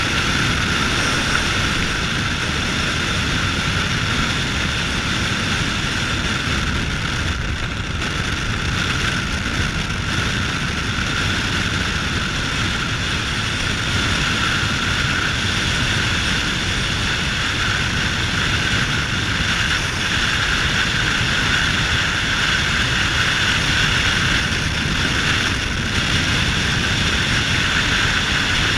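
Steady wind and tyre-on-asphalt road noise from a Chevrolet D-Max pickup driving at speed, a constant rushing hiss over a low rumble.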